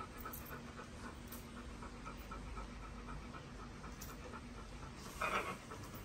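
Golden-retriever-mix dog panting quickly and evenly, about five pants a second. A brief louder sound comes about five seconds in.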